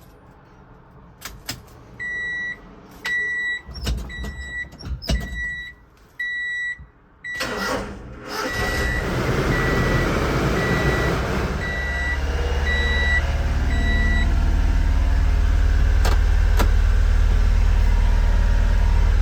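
A 1994 Honda Acty kei truck's three-cylinder engine being started, with a few clicks and an electronic warning beep repeating about once a second. About seven seconds in the engine cranks and catches, then runs on steadily with a low rumble. The truck is in a fault state where the ignition key has not sprung back fully, leaving the engine short of power and idling rough.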